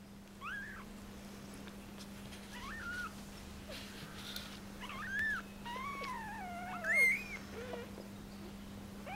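Young kittens giving thin, high-pitched mews, about six short squeaks rising and falling in pitch plus one longer wavering cry around the middle, while they jostle at the mother cat's belly to nurse. A faint steady hum runs underneath.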